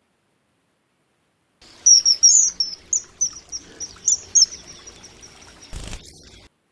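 Kingfisher calling: a rapid series of high, shrill chirps that start about a second and a half in and thin out toward the end, with a brief knock near the end.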